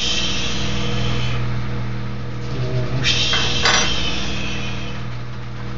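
Water spooned onto the hot sand mould and freshly poured silver sizzling in two hissing bursts, one at the start and one about three seconds in, with a few metal clinks of the spoon during the second. A steady electric hum runs underneath.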